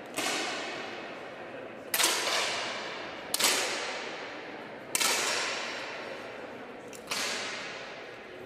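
10 m air pistols firing in a large hall: five sharp pops at uneven intervals of about one and a half to two seconds, each trailed by a long echo dying away.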